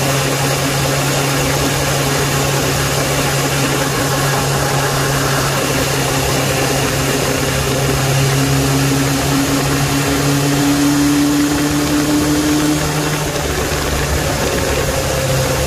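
Suzuki Bandit 600 inline-four engine running steadily at road speed, under heavy wind rush on the microphone. A slightly rising tone comes in for a few seconds about halfway through.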